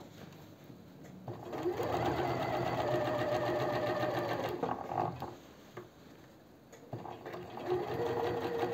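Domestic electric sewing machine stitching a seam in two runs: its motor whine rises as it speeds up about a second and a half in, it stops about five seconds in, then starts again near the end.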